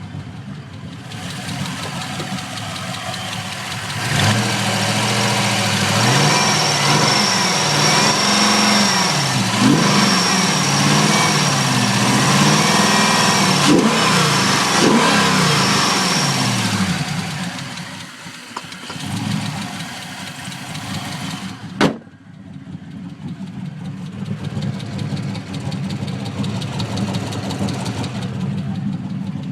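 LS1 5.7 L V8 with LS6 heads and a 228R cam idling, then revved up and down several times before dropping back to idle, with one sharp crack later on. The engine has a tick once at operating temperature that the owner cannot place between a lifter and an exhaust leak.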